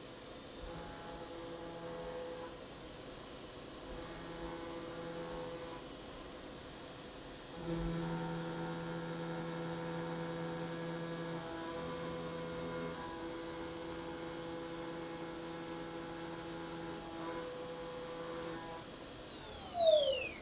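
CNC vertical machining center running its program with a chamfer tool: a steady high spindle whine over lower drive hums that change every few seconds as the axes move. In the last second the whine falls sharply in pitch as the spindle spins down and stops.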